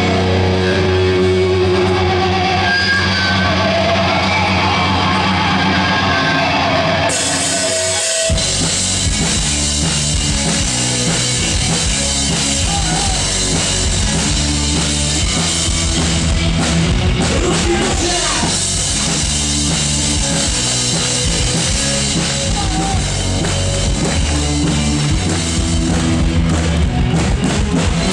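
Instrumental intro of a heavy rock song: held tones for about seven seconds, then cymbals, and the full band with drums and guitars comes in about eight seconds in.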